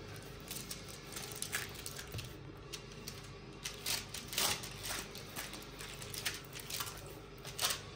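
Fingers pressing and patting soft yeast dough flat in a round baking tray: soft, irregular taps and squishes, a few a second.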